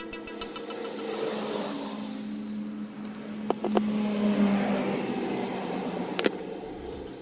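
A car engine running and revving, a steady drone under a rushing noise that swells and fades, with a few sharp clicks.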